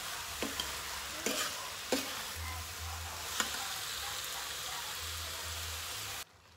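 Diced bottle gourd frying with a steady sizzle in a steel wok while a wooden spoon stirs it, with a few knocks of the spoon against the pan. The sound cuts off abruptly near the end.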